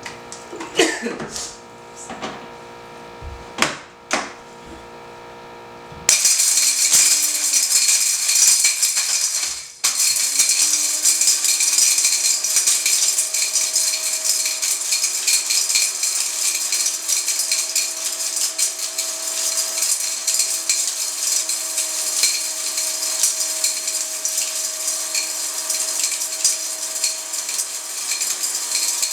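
Innomix Surya mixer grinder grinding hard dried turmeric pieces into powder. A few knocks come first; about six seconds in the motor starts and the jar fills with a loud hissing rattle of small pieces. It cuts out briefly near ten seconds, then runs on continuously.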